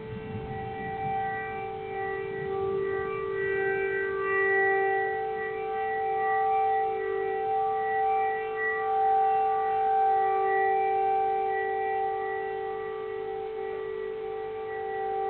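Civil-defence air-raid siren sounding a long steady tone that swells and fades slightly in loudness. A low rumble dies away in the first few seconds.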